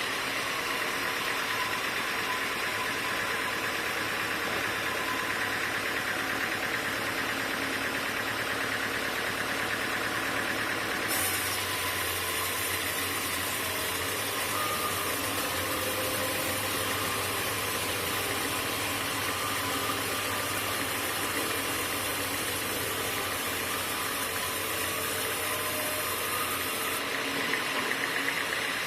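Sawmill machinery running steadily with an engine-like drone. About a third of the way in, a high hiss and a low hum step up together and hold for roughly fifteen seconds, then drop back.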